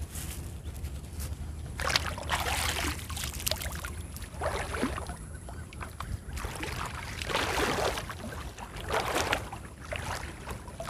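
Water sloshing and splashing around a person wading waist-deep and handling a gill net in the water, in several surges a second or two apart.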